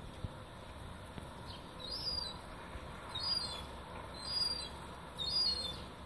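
Juvenile gulls giving short, high-pitched begging calls, four of them about a second apart, as the young birds catch sight of their parents.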